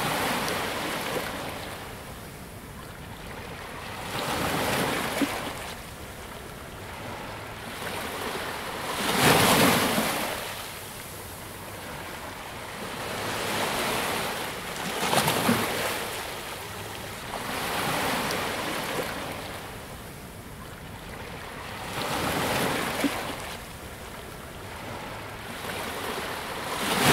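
Ocean surf breaking and washing up the shore in slow surges, one every four or five seconds, the loudest about nine seconds in.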